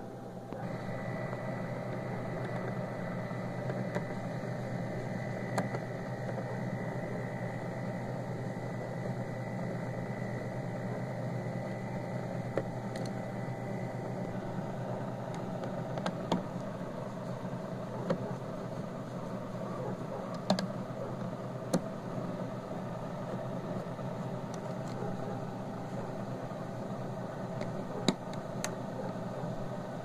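Small beer-cooler refrigerator running: its fan and compressor hum steadily, with a thin whine that stops about halfway through. Scattered sharp clicks come from a screwdriver on the screws and grille. The unit runs but does not cool, which the repairman suspects is a lack of refrigerant gas.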